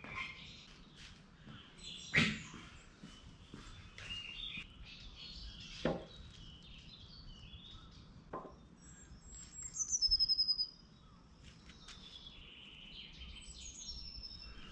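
Small birds singing and chirping outdoors, with one loud, rapid trilled phrase about ten seconds in. A few short, sharp clicks or knocks stand out, the loudest about two seconds in.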